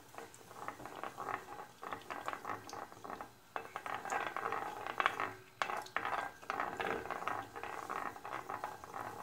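Melted butter and sunflower oil sizzling and crackling in a stainless-steel frying pan as it heats, with a wooden spoon stirring and scraping against the pan. The crackle is dense and irregular, with a few brief pauses.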